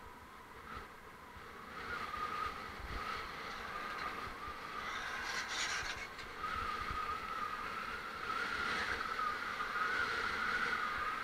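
Road and traffic noise while riding a bicycle along a busy road: a steady hiss with a wavering high whine, growing louder, and a brief sharper hiss about five seconds in.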